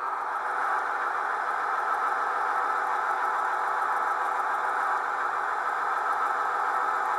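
Sound decoder of an OO gauge model of the North Eastern Railway petrol-electric autocar playing a steady engine-running sound through the model's small speaker, tinny with almost no bass.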